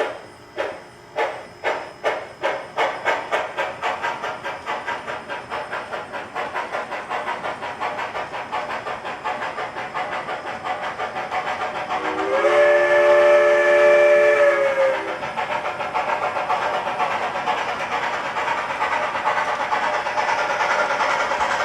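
S gauge model steam locomotive's DCC sound decoder: exhaust chuffs that start slow and quicken steadily as the locomotive gathers speed, with a multi-note chime whistle blown once for about two and a half seconds midway.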